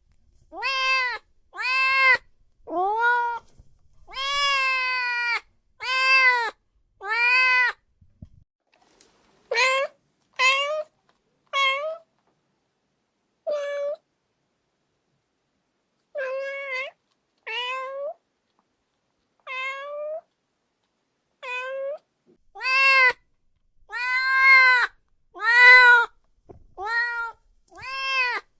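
Domestic cats meowing repeatedly, one call roughly every second, each meow rising and then falling in pitch, with clean silence between calls. The middle run of meows is shorter and quieter than the louder runs at the start and near the end.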